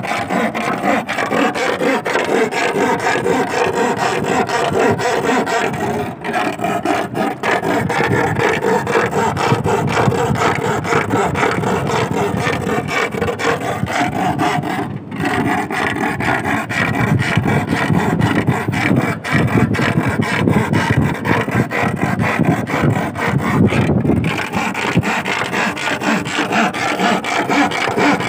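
Iron bar scraped with fast, continuous strokes, dipping briefly a few times. The noise of the metal is what draws sea worms (sasing) up out of the sand.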